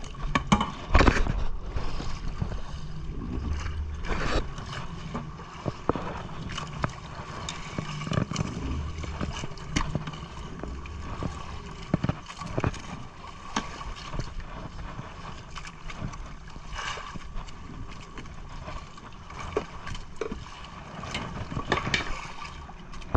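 Knocks and thumps of a landed fish and a landing net against a small boat's hull, over the steady hum and water noise of the boat at sea.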